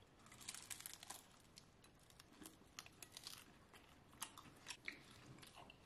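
Faint crunching and chewing as crispy filo pastry rolls are bitten into: clusters of small crackles about half a second in, again around the middle, and once more about two-thirds through.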